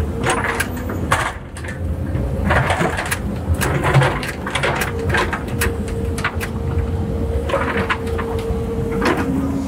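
Cat 308 excavator running under a steady hum, with rocks knocking and clattering irregularly as the bucket handles and places riprap stone.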